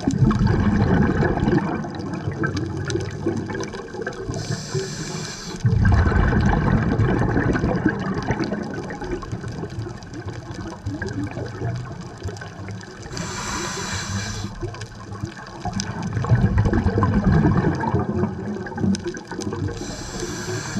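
Scuba diver breathing through a regulator underwater: a short hissing inhale three times, each followed by a louder, low bubbling rush of exhaled air.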